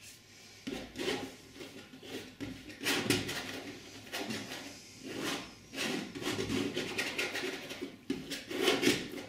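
Steel palette knife scraping through oil paint, mixing it on the palette and then spreading it onto the canvas in short strokes, several scrapes with pauses between them.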